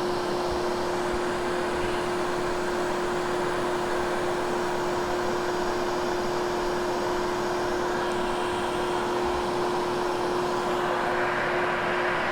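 Hoover Hush Tone vacuum cleaner running steadily over carpet, a constant hum with airy noise, growing slightly brighter near the end.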